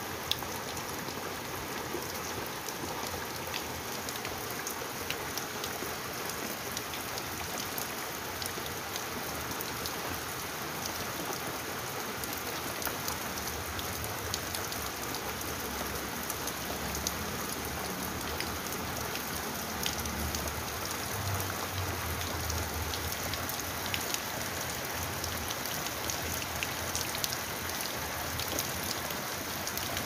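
Steady rain: a continuous hiss with many separate drops pattering throughout.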